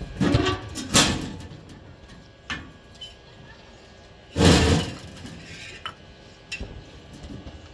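Steel pieces clanking and knocking during metalwork: several sharp irregular hits, with a louder half-second burst about four and a half seconds in.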